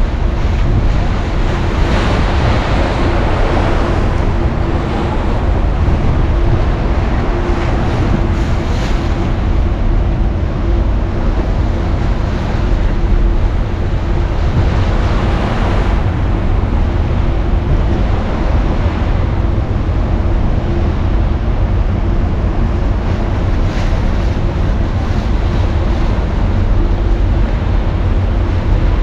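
Rushing, churning seawater of the Naruto whirlpools with wind buffeting the microphone, over a steady engine hum.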